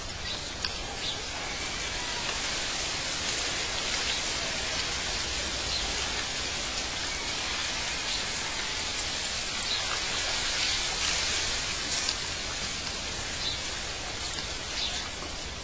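A steady, even hiss like running water, with scattered faint short high chirps.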